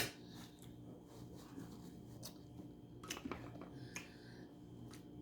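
Faint, scattered wet clicks and smacks of someone eating head-on shrimp in butter sauce: chewing and handling the shrimp close to the microphone.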